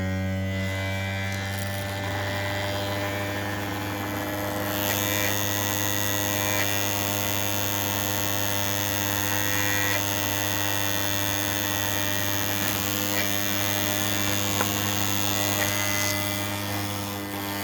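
3D-printed maglev rotor of a Hall-sensor pulse motor spinning at speed, giving a steady hum with its shaft end dry-lubed. A thin high whine joins it about five seconds in and drops out near the end.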